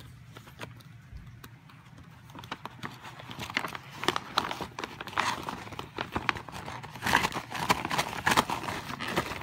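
A dog-treat bag crinkling and rustling as it is handled, starting about two seconds in and getting louder in bouts.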